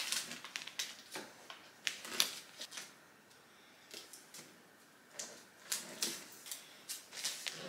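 Christmas wrapping paper rustling and crinkling in irregular bursts as it is folded and creased by hand.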